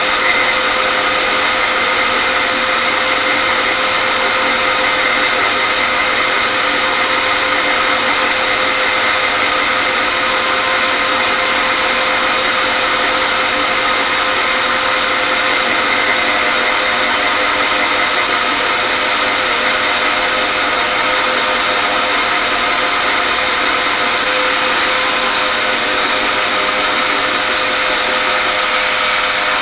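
Router and drill press running together with a steady high whine, as the router bit cuts a square wooden blank spinning in the drill press chuck down into a round dowel.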